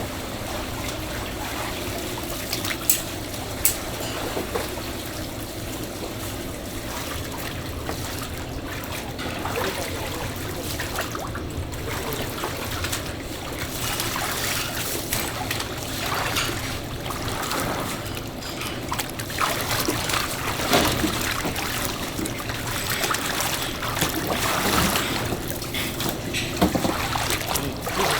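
Water running and trickling steadily, with a couple of sharp clicks about three seconds in and busier splashing and handling noise in the second half.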